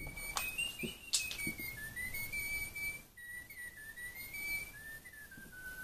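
Little Live Pets electronic toy bird whistling a tune from its built-in speaker: one thin, unbroken whistle that steps and slides up and down in pitch. A few short clicks come in the first second or so.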